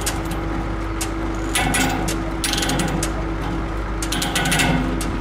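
A ratchet clicking in short runs of rapid clicks, about three times, as it is worked on the steel bridge deck being set in place. Under it runs a steady hum.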